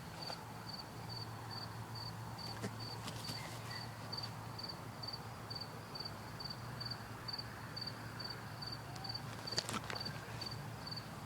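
A cricket chirping steadily, about three short high chirps a second, over a faint low hum, with a few soft clicks.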